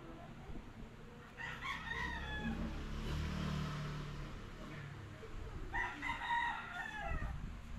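A rooster crowing twice, each crow about a second and a half long and falling in pitch at the end, with a low rumble between the two crows.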